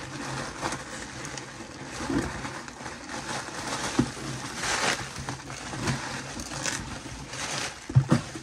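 Thin plastic bag crinkling and rustling as it is handled and pulled out of a cardboard shipping box, with many small crackles throughout and a sharp knock near the end.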